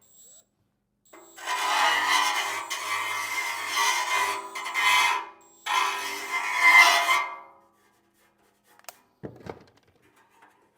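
Edge of a freshly drilled hole in a steel oil pan being deburred: two spells of scraping, metal on metal, a few seconds each with a short break between, then a couple of small knocks near the end.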